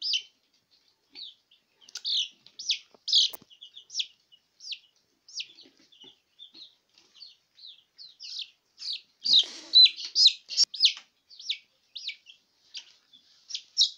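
Young chicks peeping: a steady string of short, high chirps, rising to a louder flurry of peeps about nine to eleven seconds in.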